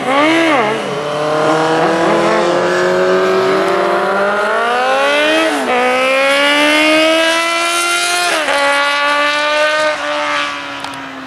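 Racing motorcycle engine: a couple of quick throttle blips, then accelerating hard, its note rising and dropping sharply at two upshifts, about halfway through and again about three-quarters through, then holding nearly steady.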